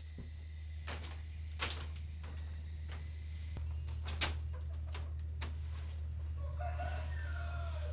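Chickens clucking in short sharp bursts, then a rooster crowing near the end, over a steady low hum.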